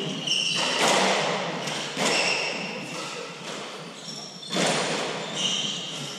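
Hardball doubles squash rally: three sharp hits of the hard ball on racquets and walls, a second or two apart, each ringing on in the court's echo, with short high squeaks of court shoes between shots.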